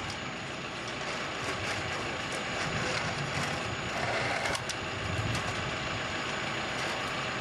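Sonic drill rig's engine idling steadily, with a few light clicks from the tubing being handled.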